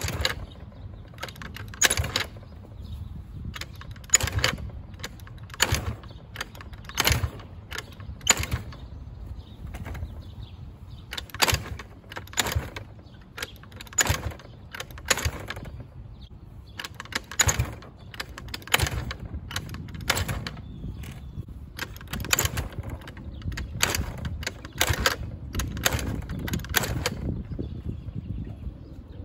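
Taotao Pony50's 50cc GY6 (139QMB) four-stroke engine being cranked over again and again without catching: a run of sharp clicks and knocks over a low hum. After months of sitting, fuel pressure still has to build before it will fire.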